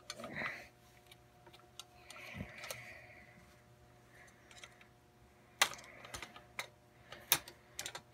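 Scattered metallic clicks and knocks of a 9mm AR-15 being taken apart by hand, its New Frontier lower and PSA upper receivers and takedown pins handled, with a few sharper clicks in the second half.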